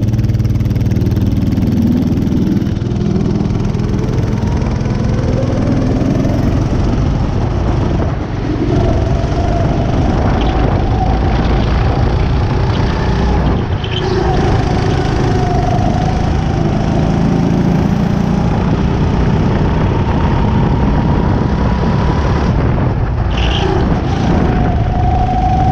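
Racing kart engine accelerating out of the pit lane, its note climbing over the first several seconds, then running at high revs around the track with brief dips where the driver lifts for corners. Wind rushes over the kart-mounted camera throughout.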